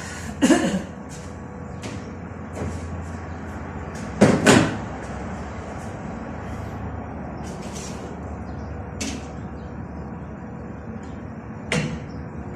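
A few sharp knocks and clanks during metalwork: one about half a second in, a louder double knock about four seconds in, and one near the end, over a steady low rumble.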